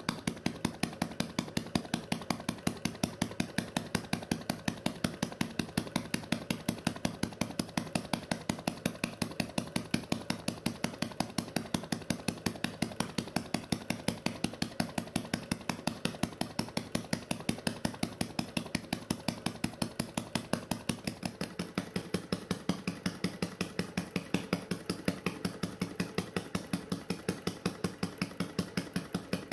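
Model vacuum (flame-licker) engine running steadily, its burner flame drawn into the cylinder on each stroke, with a regular ticking beat of about five a second.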